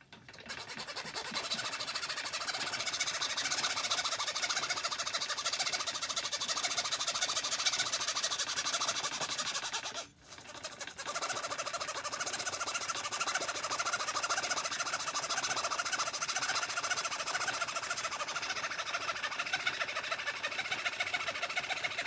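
Treadle fretsaw cutting scrollwork in a thin wooden panel: the blade's fast, steady reciprocating rasp, with a short break about ten seconds in before the cutting resumes.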